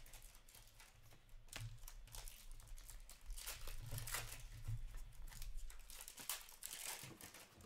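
Upper Deck hockey trading cards slid and flipped through by hand: a run of short papery swishes and scrapes, with crinkling.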